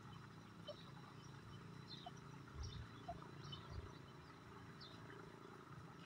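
Quiet outdoor ambience with faint, short bird chirps scattered throughout, and a few low dull thumps near the middle.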